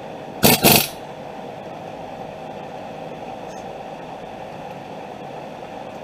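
Impact wrench running down a wheel hub assembly mounting bolt in two short, quick bursts about half a second in, over a steady background hum.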